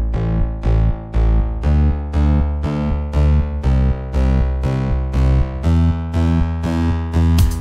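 Background music: electronic keyboard chords struck about twice a second over a deep bass, with drums coming in right at the end.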